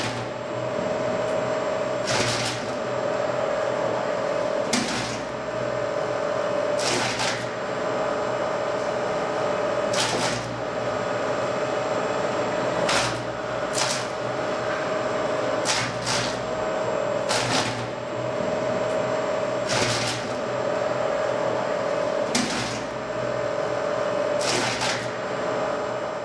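Urschel Model M industrial dicer running, a steady machine hum with a held tone, broken every two to three seconds by a short burst of noise.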